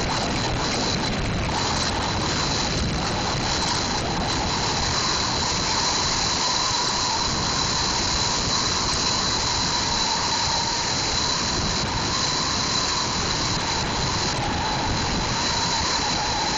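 Wind rushing over the microphone of a phone held out of a moving car's window: a steady, unbroken roar of wind noise.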